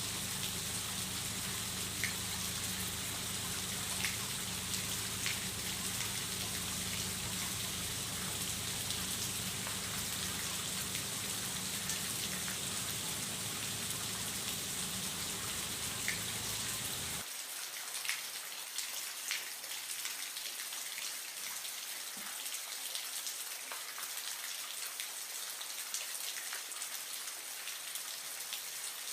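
Aquarium water trickling and pattering steadily, with scattered small drips, over the low steady hum of a filter or air pump. About two-thirds of the way through, the hum stops abruptly and only the watery patter remains.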